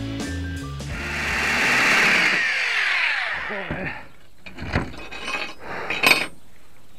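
Background music ends, then a rushing whoosh swells and fades with a falling pitch. After that come several sharp metallic clinks as steel masonry drill bits are handled on clay roof tiles, the loudest about six seconds in.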